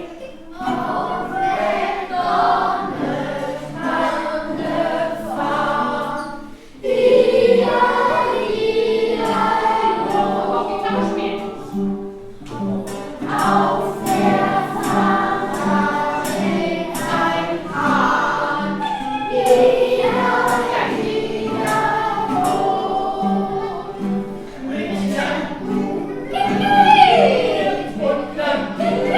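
A group of voices singing a song with instrumental accompaniment that repeats a steady pattern of low notes; it grows fuller and louder about seven seconds in.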